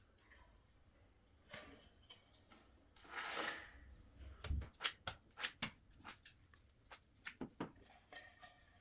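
Faint clicks and light knocks of a plastic electrical socket box being handled and fitted, with a brief scrape about three seconds in and a quick run of clicks through the second half.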